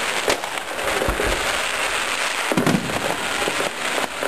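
Fireworks going off: a continuous crackle with several sharp bangs, and a deep boom about a second in.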